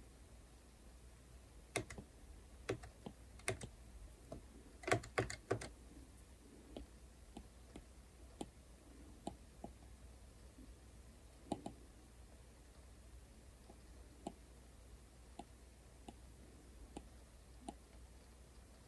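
Stylus tip tapping and clicking on a tablet's glass screen during drawing strokes: scattered sharp clicks, a quick run of them about five seconds in, then fainter, sparser taps.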